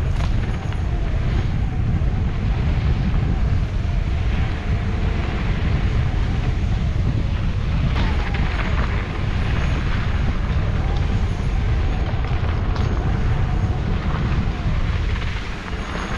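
Mountain bike descending a loose dirt trail at speed: a steady rush of wind on the microphone and a low rumble of tyres rolling over dirt and stones, with a couple of sharp knocks as the bike hits rocks.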